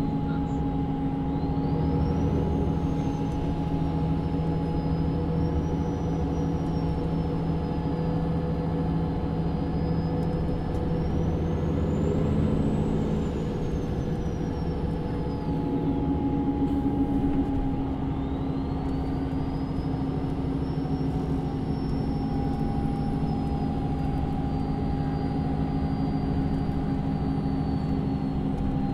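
Inside a moving MAN Lion's City (NÜ 323) diesel city bus: the engine runs steadily under a high whine that rises and falls with the bus's speed. The whine drops away about halfway through and then climbs again as the bus pulls away.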